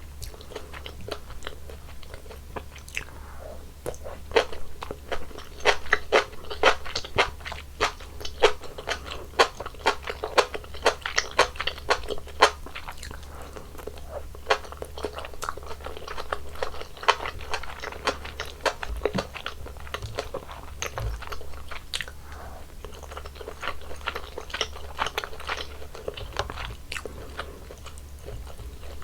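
Close-miked chewing and crunching of mala tang: a quick run of crisp, wet bites and chews, busiest in the first half and picking up again near the end.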